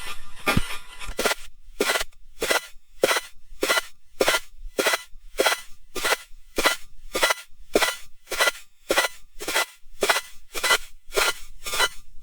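Footsteps crunching through snow at a steady walking pace, about two crunchy steps a second.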